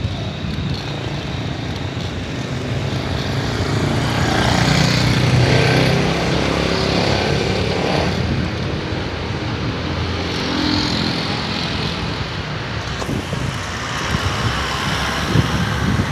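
Road traffic and vehicle engine noise heard while riding along a street, with wind on the phone's microphone. It swells about four seconds in, then settles back.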